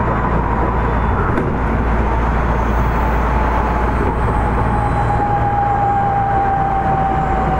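Running noise inside an Odakyu 1000 series electric train with a Mitsubishi GTO-VVVF inverter: steady wheel-and-track rumble and loud air conditioning. Over it a single whine falls slowly in pitch as the train slows for the next station.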